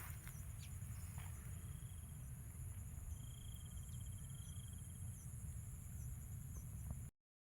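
Insects chirring steadily at a high pitch, with a short trill about halfway through, over a steady low rumble. The sound cuts out abruptly just before the end.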